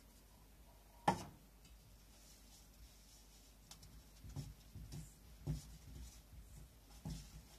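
A single sharp knock about a second in, then soft, irregular thumps and rustling as a hand mixes flour and water in a stainless steel bowl on a wooden board.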